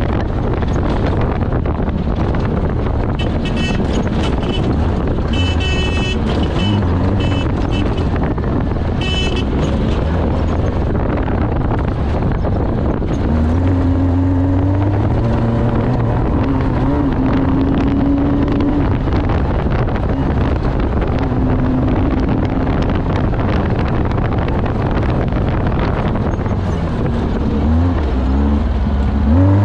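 Off-road race vehicle's engine running hard under a constant roar of wind and road noise, its pitch rising and falling as it revs and changes speed. A high-pitched tone sounds on and off a few seconds in.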